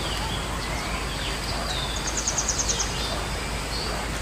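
Birds calling over steady outdoor background noise: several short downward-sliding whistles, and about two seconds in, a quick trill of about eight high notes.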